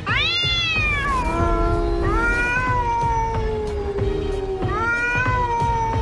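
Two cats yowling at each other before a fight: one holds a long, low call that slowly falls in pitch, while the other lets out three higher wails that rise and then fall, the first the loudest.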